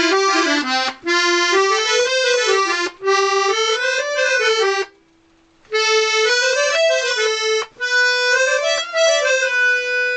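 Vintage Scarlatti 24-bass piano accordion playing a tune in short phrases with brief breaks, ending on a held chord. It has a rich tremolo sound, and its reeds have just been refitted but not yet tuned.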